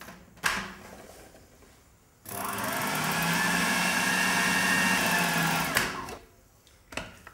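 Food processor motor running steadily for about three and a half seconds as its blade grinds soft cooked chickpeas, starting about two seconds in and cutting off sharply. A single knock comes just before it, and a few light clicks near the end.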